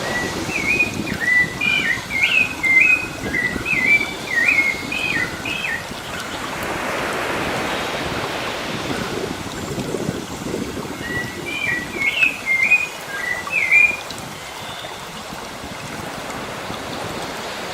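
Sea waves washing steadily, swelling for a few seconds midway, while a songbird sings two runs of quick, repeated whistled notes: one from the start lasting about six seconds, another starting around eleven seconds in.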